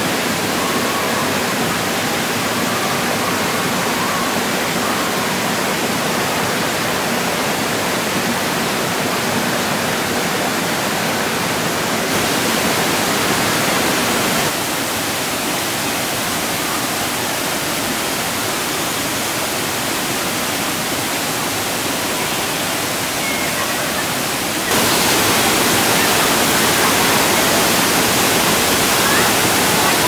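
Steady loud rush of Leimaram Waterfall's falling water. Its level jumps abruptly about 12 seconds in, drops about 15 seconds in, and rises again about 25 seconds in.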